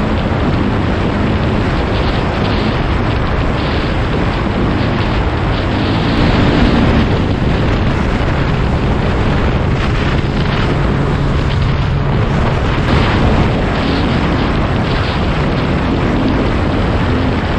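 Quad bike engine running while riding, its pitch shifting up and down, heavily overlaid by wind buffeting on a helmet-mounted microphone.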